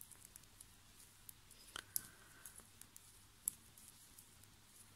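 Faint, scattered clicks of circular knitting needles tapping together as stitches are knitted, with a few sharper ticks among them.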